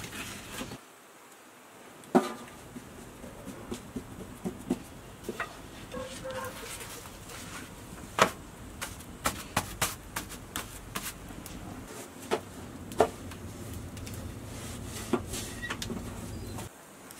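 Wood fire under an iron flatbread griddle crackling, with scattered sharp pops and clicks at irregular intervals over a low background.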